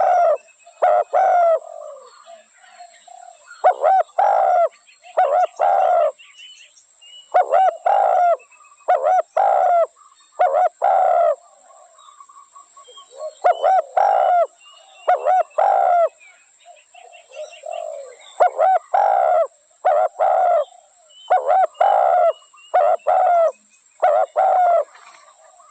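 Spotted dove cooing in repeated phrases of several notes, a new phrase every few seconds, with faint higher chirps between the phrases.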